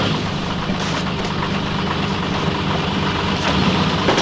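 Truck engine running steadily at idle.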